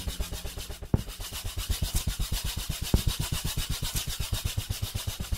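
Percussive soundtrack music: a fast, even pulse of low beats under a steady hiss, with two louder hits about one and three seconds in.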